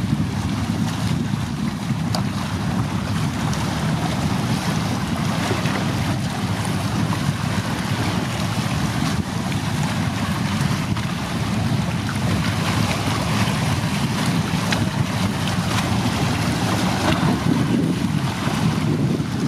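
Wind blowing steadily across the microphone, over the wash of choppy sea water.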